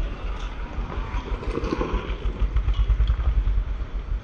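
Wind buffeting the camera microphone: a low, uneven rumble that rises and falls, with faint scuffs over it.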